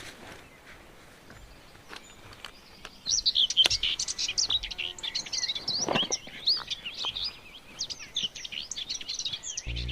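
Wild birds chirping: many rapid, high chirps, sparse for the first few seconds and then a dense, overlapping chorus from about three seconds in.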